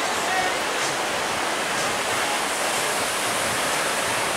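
Ocean surf breaking on a sandy beach: a steady, even rushing hiss of waves.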